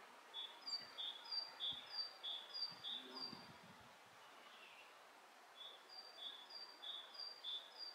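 Great tit singing its two-note song, a higher note followed by a lower one, repeated about five times. After a pause of about two seconds the song starts again.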